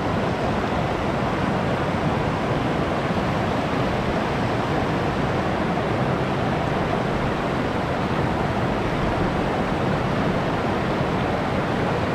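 Shallow stream water rushing and splashing over rocks below a weir's outflow: a steady, unbroken rush.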